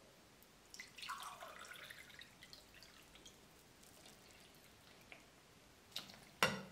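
Water poured from a glass jug into a drinking glass, starting about a second in, then dribbled from the glass onto flour in a glass bowl, with small drips. Near the end comes a sharp glass clink, the loudest sound.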